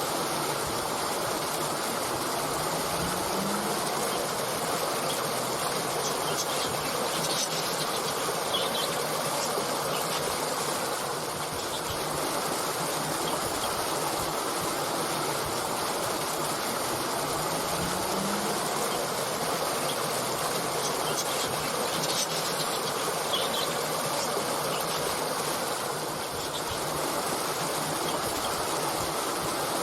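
A small stream babbling steadily over stones, with a few faint, brief bird chirps high above the water noise.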